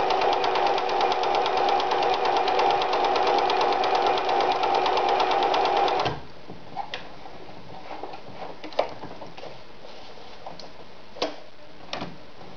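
Riccar 906E electronic sewing machine stitching cotton fabric at a steady fast rate, a rapid even needle rhythm over the motor's hum, stopping suddenly about six seconds in. After that, a few light clicks and taps as the machine's control dials are handled.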